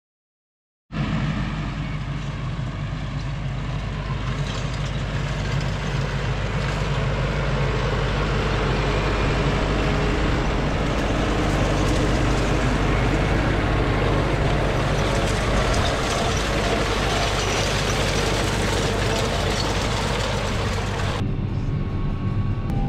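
Large farm tractor's diesel engine running steadily, with a dense rushing machinery noise over a constant low hum. It starts abruptly about a second in, and the higher rushing noise cuts off near the end.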